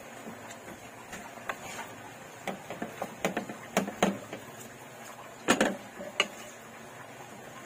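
Spatula knocking and scraping against a wok while stirring squid rings: irregular clacks, the loudest about five and a half seconds in.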